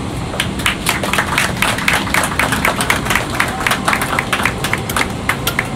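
A small group of people applauding, many separate hand claps over a steady low hum; the clapping starts about half a second in and dies away near the end.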